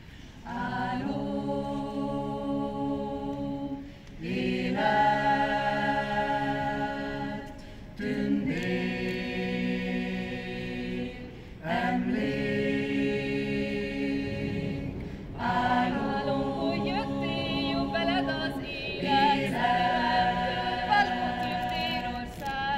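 Mixed choir singing a cappella, holding sustained chords in phrases of about four seconds, each phrase breaking off briefly before the next chord.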